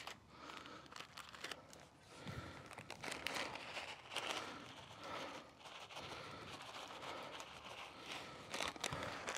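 Faint, scattered rustling, crinkling and crunching from tree-planting work by hand: soil being backfilled and firmed around a newly planted cherry tree, with a few sharp clicks.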